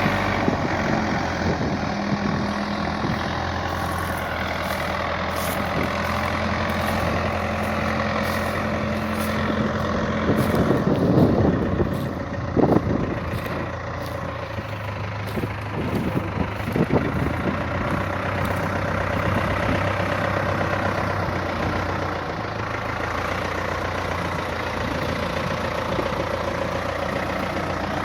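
Backhoe engine running steadily while it works, with a cluster of louder knocks and scrapes in the middle, the bucket digging into dirt and rock.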